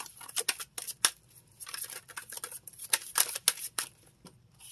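A deck of tarot cards being shuffled by hand: irregular quick card snaps and short swishes, busiest about three seconds in.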